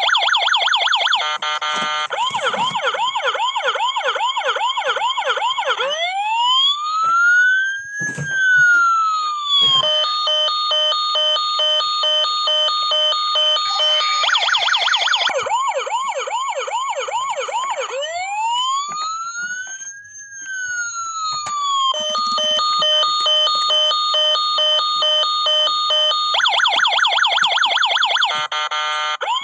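Toy fire truck's electronic siren sounding continuously, cycling through overlapping patterns: a fast warbling yelp, a steady pulsing beep, and twice a slow wail that rises and falls.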